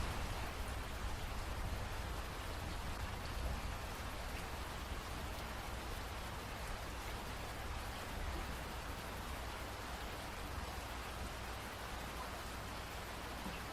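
Steady rain falling as a dense, even hiss with a low rumble underneath, easing slightly in the first few seconds and then holding level.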